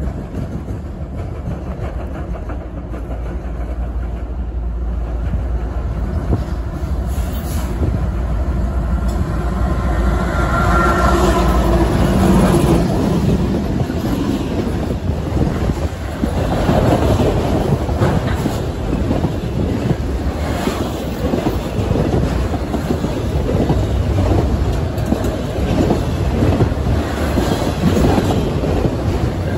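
A CSX diesel freight locomotive approaches and passes close by, its engine rumble building to a peak about twelve seconds in. Then a line of autorack cars rolls past, with the steady clickety-clack of wheels over the rail joints.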